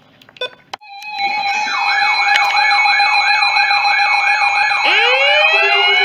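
Midland weather alert radios sounding their alert alarm for a Special Marine Warning: a steady tone with a warbling siren sweeping up and down about three times a second. About five seconds in, a second alarm joins, rising in pitch.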